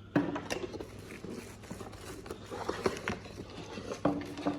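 Packaging being handled: a run of clicks, taps and rustling as parts are taken out of the box, with sharper clicks just after the start and about four seconds in.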